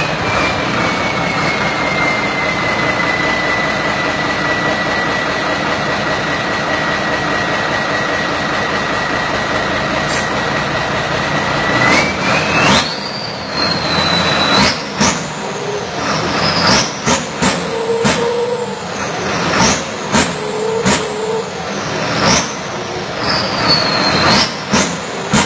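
A rice combine harvester's engine running with a high howling whine. The whine holds steady for about twelve seconds, then climbs and falls again and again as the engine is revved, with sharp clicks throughout.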